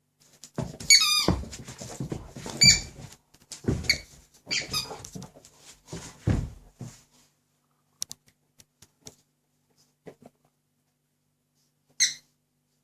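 A Dobermann chews a squeaky rubber pig toy, squeezing out a run of sharp squeaks over muffled chomping for several seconds. Then come a few faint clicks of teeth on the toy, and one last squeak near the end.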